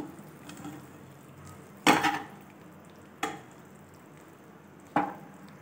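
A metal slotted spoon scooping food out of a nonstick wok and tipping it onto a plate: three sharp clinks of spoon against pan, about a second and a half apart, the first loudest.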